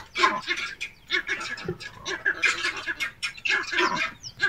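Rapid, repeated harsh squawking calls.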